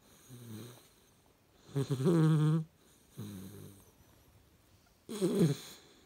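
Hungarian Vizsla puppy snoring in its sleep. There are two loud, pitched snores about three seconds apart, the second one falling in pitch. Softer, lower breathing sounds come between them.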